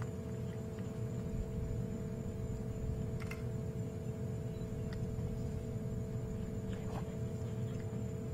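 A steady hum over a low rumble, with a few faint ticks.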